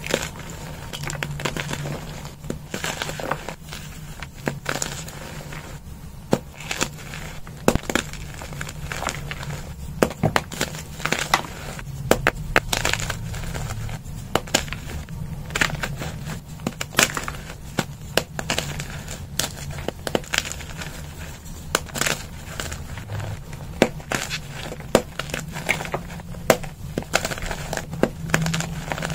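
Soft pearly gym chalk blocks being crushed and crumbled by hand into powder: a continuous, irregular run of dry crunches and crackles, with sharper cracks every second or so.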